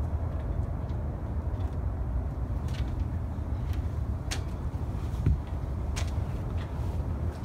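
Outdoor ambience dominated by a fluctuating low rumble of wind buffeting the microphone, with a few scattered light clicks and a single thump about five seconds in.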